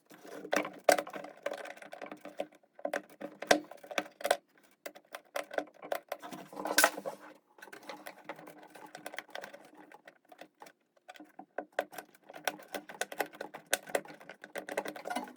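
Irregular clicks, knocks and light scraping as hands and tools work on the drum washing machine's damper mounts, with one louder knock about seven seconds in.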